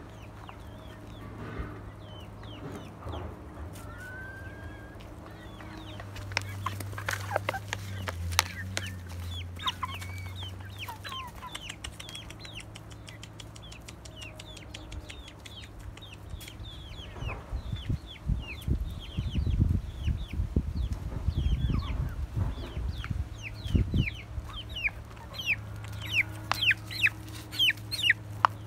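A flock of hens and half-grown chicks clucking and peeping, with many short, high, falling peeps that come thickest near the end. A run of low knocks and rustling is heard through the second half.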